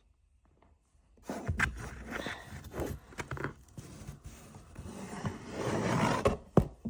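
Packaging in a big box rustling and scraping as something is lifted out of it, starting about a second in, with one sharp knock near the end.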